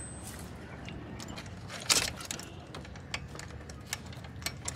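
Small metal parts and tools handled on an engine's hoses and hose clamps at the throttle body: scattered sharp metallic clicks and clacks, the loudest about two seconds in, over a low steady hum.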